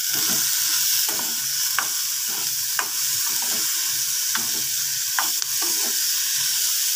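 Diced snake gourd sizzling in hot oil in a kadai while a metal spoon stirs it, the spoon knocking and scraping against the pan about once a second over a steady frying hiss.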